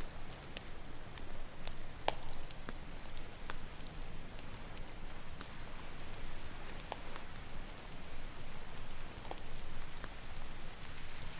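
Campfire crackling, with sharp irregular pops, over a steady hiss of ocean waves washing ashore; a wave swells louder near the end.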